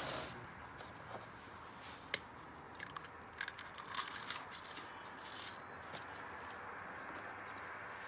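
Eggs being cracked by hand into pots of dog food: scattered sharp cracks and crunches of eggshell, the loudest about two seconds in.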